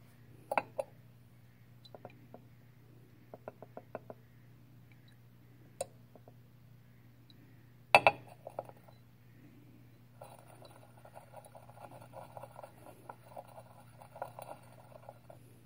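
Glass Erlenmeyer flask clinking and rattling on a hard benchtop as it is swirled, with scattered sharp glass clicks and one louder clink about eight seconds in. A rapid rattle of the swirling flask follows from about ten seconds on, over a low steady hum.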